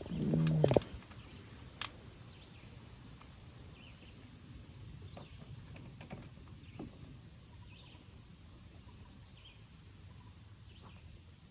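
Faint outdoor background with scattered small bird chirps. In the first second a brief loud pitched whir ends in a sharp click.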